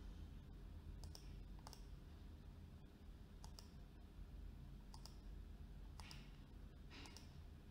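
Faint computer mouse clicks, about seven of them at irregular intervals, over quiet room noise.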